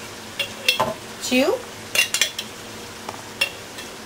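Metal spoon scraping and clinking against the bottom of a glass jar as a thick sofrito and spice mix is scooped out: several sharp clinks and one short squeaky scrape about a second and a half in.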